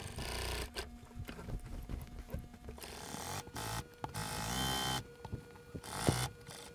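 Juki industrial sewing machine running in short, stop-start bursts of stitching.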